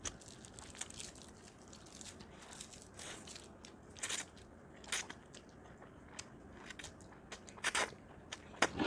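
People eating close to the microphone: chewing with several sharp crunches and crackles, the loudest about four and five seconds in and near the end.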